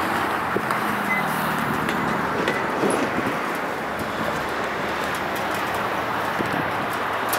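Diesel refuse truck driving away, its engine note plain for the first few seconds and then fading, over a steady rush of wind noise.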